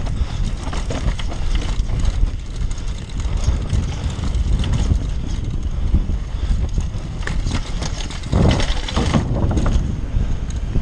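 Downhill mountain bike descending a rough dirt trail at speed: wind buffeting the microphone over a steady rumble of tyres on dirt, with the bike rattling through many quick clicks and knocks. A louder, heavier stretch of rumble comes about eight seconds in.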